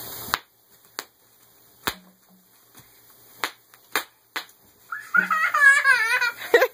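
Bubble wrap popping under a toddler's bare feet: about six sharp single pops spaced out over several seconds. Then, about five seconds in, the toddler lets out a high, wavering squeal of laughter.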